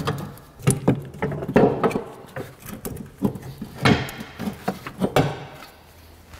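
Irregular knocks, clunks and scrapes as a rear strut and coil spring assembly is worked out of the wheel well, bumping against the suspension and body. The strongest knocks fall about two, four and five seconds in, and it goes quieter near the end.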